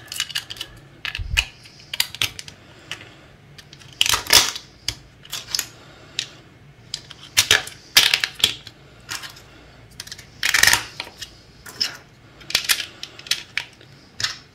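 Irregular sharp plastic clicks and snaps as clear 3D-printed diffuser pieces are pressed into the segment openings of a 3D-printed seven-segment display frame, with a few louder snaps about four, eight and ten and a half seconds in.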